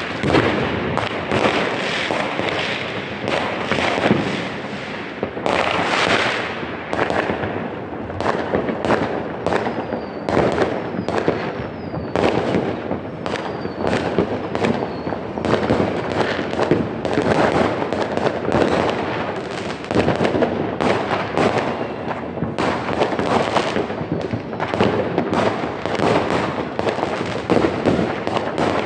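Many fireworks and firecrackers going off at once: a continuous barrage of bangs and crackling with no let-up. A few faint falling whistles come about ten to fifteen seconds in.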